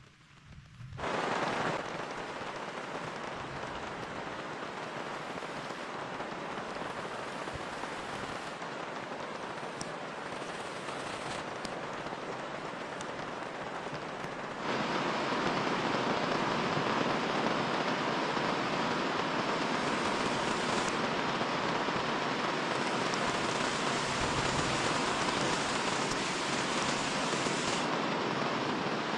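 Steady rain falling, an even wash of drops with no single sounds standing out; it jumps louder about halfway through.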